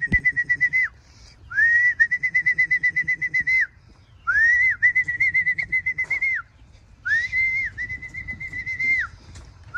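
Four long, trilling whistle blasts, each rising at the start and dropping away at the end: a fancier's whistle calling racing homing pigeons down to the loft as they return from a race.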